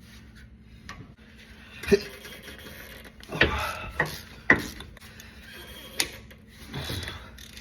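Hand tools working on the car's subframe bolts: scattered sharp metallic clicks and knocks, three of them about half a second apart in the middle, with heavy breaths in between.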